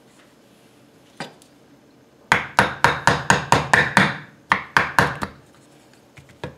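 Claw hammer tapping a blunted nail used as a punch into a Type 81 rifle bolt, driving out the firing pin retainer pin. One light tap about a second in, then a quick run of about eight taps at roughly four a second, a short pause and three more.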